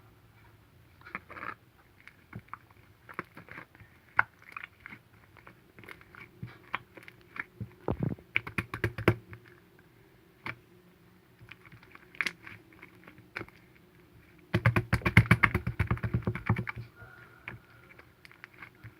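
Slime being squished and poked by hand, making irregular sticky clicks and pops, with a dense run of rapid clicking about fifteen seconds in.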